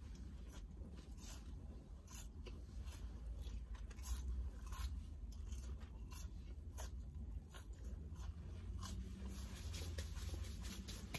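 Close-up chewing of French fries: soft crunching and moist mouth clicks, many short ticks scattered through, over a steady low rumble. Near the end, hands are rubbed together.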